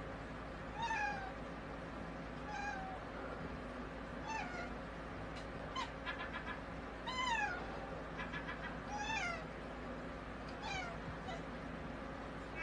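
A domestic cat giving a string of short meows that fall in pitch, about seven spread over the stretch.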